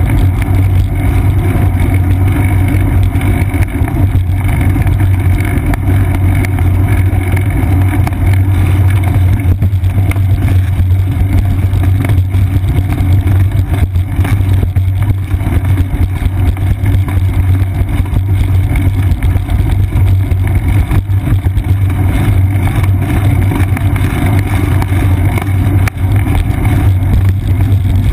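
Steady low rumble of wind and road vibration from a bicycle rolling along a concrete path, picked up by a camera mounted on the bike's seat post.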